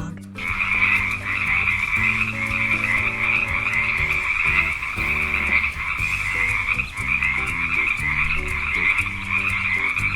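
Frogs croaking in a continuous chorus, starting about half a second in, over light background music.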